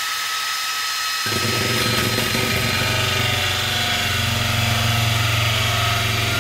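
Cordless drill spinning a hole saw at high speed in forward, its motor whining steadily. About a second in, the saw's teeth bite into the wall panel and a low, rough cutting noise joins the whine as the saw digs in at the edge of the old hole, with no centre for the pilot bit to grip.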